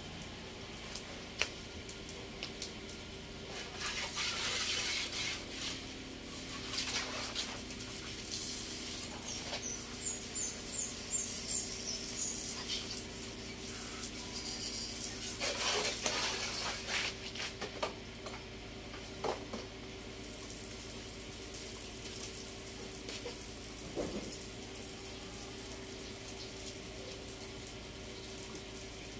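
Water spraying from a garden hose nozzle onto a motorcycle, hissing and splattering in irregular bursts that ease off in the later part.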